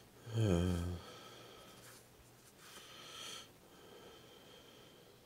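A man's short, low hum or murmur about half a second in, then a breath out through the nose around three seconds in, over faint handling of trading cards.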